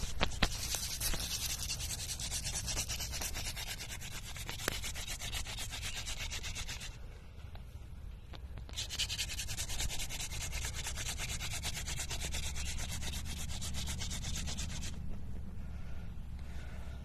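Hand-drill friction fire: a goldenrod-stalk spindle spun back and forth between the palms, grinding into a wooden hearth board with a fast, scratchy rubbing. It runs in two long bouts with a short pause about seven seconds in, and eases off about fifteen seconds in.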